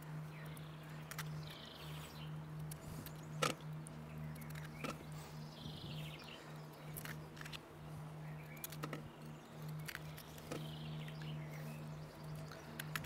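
Knife cutting potatoes and the pieces dropping into a stainless-steel steaming basket, a handful of short sharp knocks spread out over several seconds. Birds chirp now and then, over a steady low hum.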